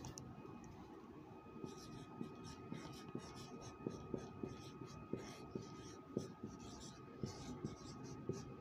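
Marker pen writing on a whiteboard: faint, quick, irregular strokes that grow busier from about two seconds in.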